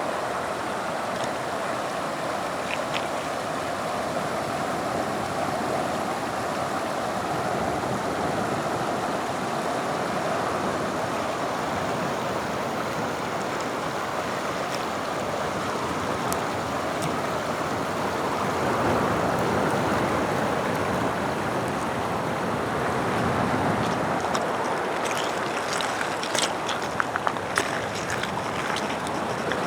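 Sea waves washing on the shore together with running water: a steady rushing that swells twice in the second half. A few sharp clicks come near the end.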